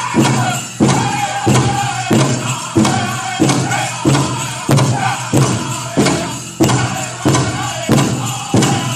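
Powwow drum group singing a contest song for the chicken dance, high voices over a big drum struck in a steady beat, about three strikes every two seconds.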